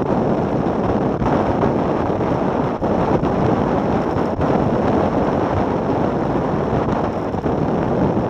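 Steady rush of wind buffeting an action camera's microphone on a power catamaran running at about 35 mph, dipping briefly a few times.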